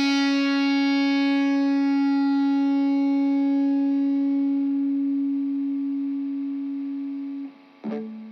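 Instrumental track ending on one held, distorted electric guitar note that rings for about seven and a half seconds and stops, followed by a short last note that fades out.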